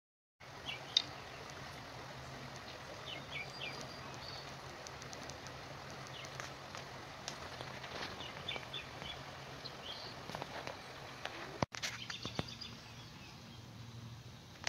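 Outdoor ambience: a steady hiss with scattered short bird chirps and a few light clicks, broken by a brief gap about twelve seconds in.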